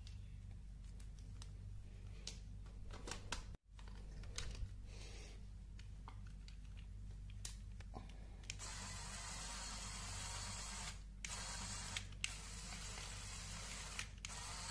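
Clicks of Lego parts and connectors being handled. Then, a little over halfway in, a small Lego Technic electric motor starts driving a train of plastic gears with a steady whir, cutting out briefly three times.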